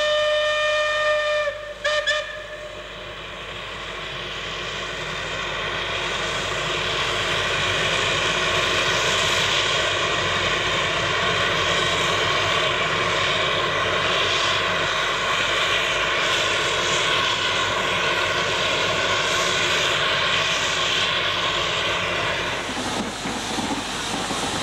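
A steam whistle blows for about a second and a half, then gives a short second toot. Then a steam cog locomotive works hard uphill pushing its coach, its exhaust growing louder over several seconds and then running steadily.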